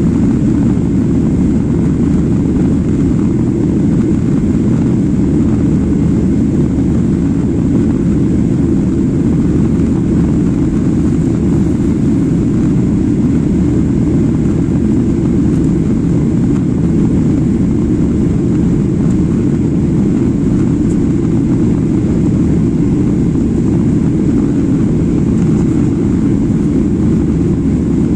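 Airliner cabin in flight: a steady, even roar of jet engines and airflow, heaviest in the low end, with no change throughout.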